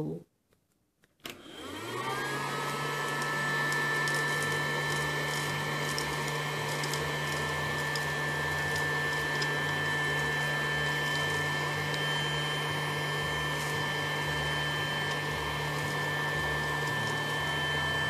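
Casdon toy Dyson DC22 cylinder vacuum cleaner running on suction. About a second in it starts up, its whine climbing briefly and then settling into a steady whine over a low hum, as the crevice tool sucks up polystyrene balls.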